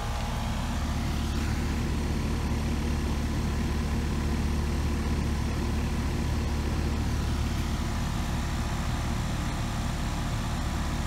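ICP/Carrier heat pump outdoor unit running, a steady low hum from its compressor and condenser fan.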